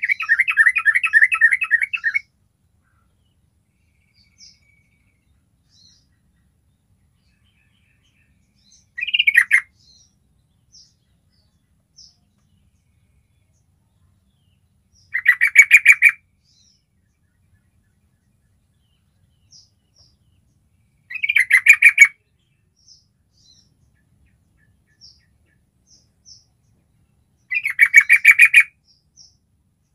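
Yellow-vented bulbul song: short phrases of rapid notes, five in all, repeated about every six seconds, with faint single high notes between them.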